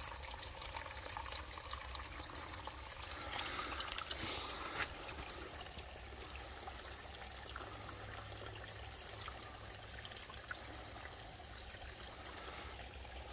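Water trickling and lapping at the edge of the Ohio River, a steady low wash that grows slightly louder about three to five seconds in.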